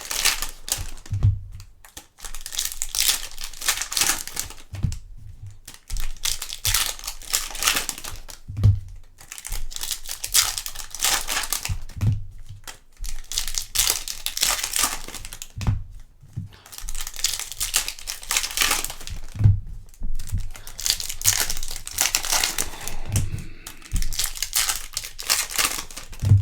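Foil trading-card pack wrappers being torn open and crinkled by hand, pack after pack, in repeated bursts of crackling with short pauses and a soft thump every few seconds.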